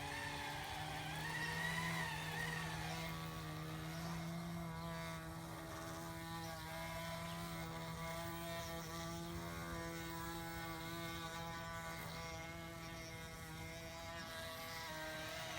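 Radio-controlled model construction machine running, a steady motor and gear whine that wavers in pitch for the first few seconds, then holds steady.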